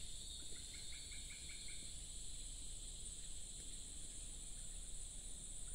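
Steady high-pitched drone of insects, crickets or cicadas, in the surrounding trees, with a quick run of about seven short chirps about half a second in.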